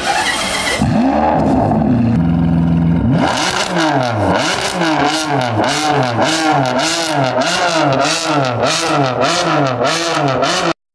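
Sports car engine revved over and over, its pitch swinging up and down in quick even blips about every three-quarters of a second after a steadier stretch. The sound cuts off suddenly near the end.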